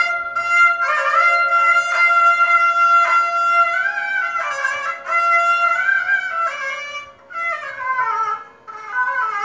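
Balochi sorud, a bowed folk fiddle, playing a melody with long held notes and sliding, falling phrases. A long-necked lute strums a steady rhythm underneath.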